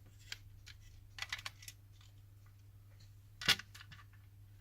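Light clicks and taps of a PS4 controller's plastic parts being handled after the shell has been opened: a quick run of small clicks about a second in and one sharper click about three and a half seconds in.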